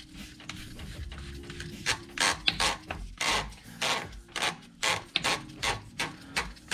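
Adjustment knob of a Pelican (Dosatron) chemical feed injector being worked onto the pump body by hand, plastic rubbing on plastic. From about two seconds in it makes a run of short scratchy strokes, about two a second.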